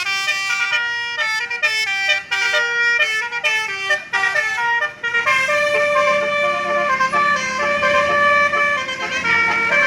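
Tour bus telolet multi-tone musical horn (Basuri) playing a melody: quick stepped notes for about five seconds, then longer held notes.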